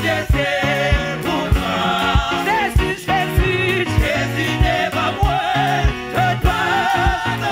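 Live gospel worship music: a woman leads a Haitian Creole hymn with backing singers joining in, over bass and a steady drum beat.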